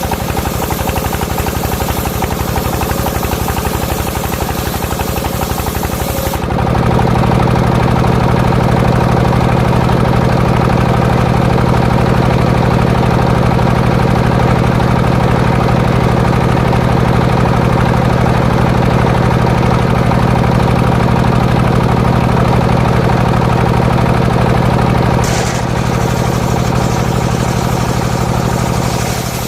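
Engine of a homemade circular saw rig running steadily. About six seconds in, the sound turns louder and deeper, and it shifts back briefly near the end.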